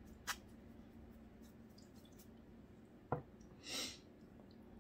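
Mostly quiet, with a light tap early on and a knock about three seconds in as the nail file is handled, followed by one short rasp of the file on a pointed polygel nail.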